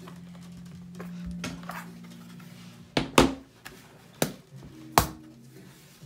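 MacBook Pro aluminium bottom case handled and worked loose by hand: sharp metallic clicks and knocks, a quick pair about three seconds in, then single ones about a second and two seconds later, over faint background music.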